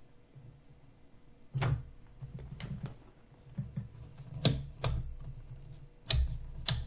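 Sharp plastic clicks and knocks, irregularly spaced, as a turntable is handled and its controls are switched on.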